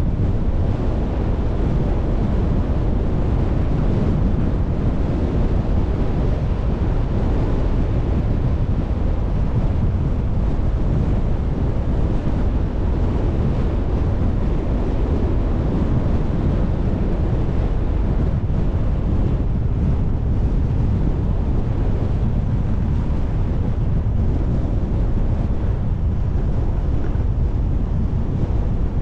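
Steady low rumble of wind and road noise from a car driving along, with wind buffeting the microphone.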